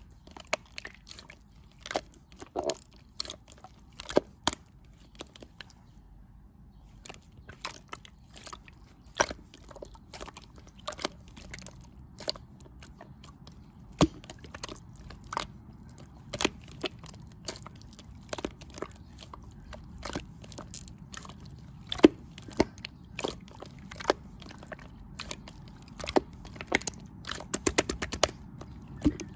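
Irregular crisp crunches and sharp clicks, one to a few per second, with a quick rattling run of clicks near the end.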